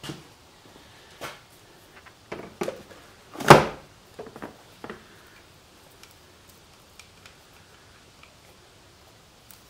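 Scattered clicks and knocks of a motorcycle battery being handled and fitted into the frame, the loudest a single sharp knock about three and a half seconds in; the handling sounds die away after about five seconds.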